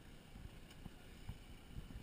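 Faint wind buffeting the microphone: a low, uneven rumble with a few soft thumps.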